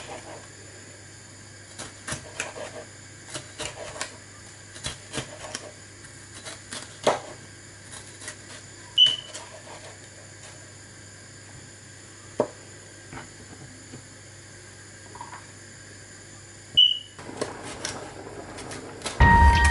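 Kitchen knife slicing bell peppers on a cutting board: irregular taps and knocks of the blade against the board as strips are cut.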